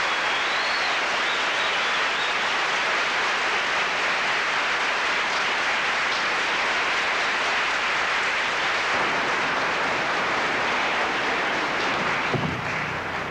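Theatre audience applauding steadily at the end of a choral number, with a single thump near the end as the clapping dies away.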